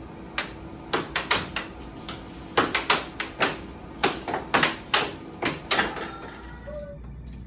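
Air hockey rally: the puck clacking sharply off the mallets and the table's rails in quick, irregular succession, stopping about six seconds in.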